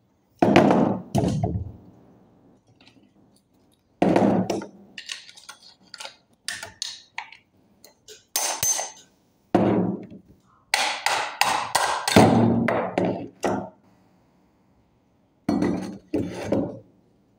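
Metal starter-motor parts knocking and clinking as they are handled and set down during disassembly, in irregular bursts of knocks and clinks with short pauses between.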